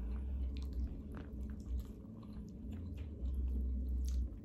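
Close-miked chewing of food, with many small wet mouth clicks and smacks, over a low steady hum.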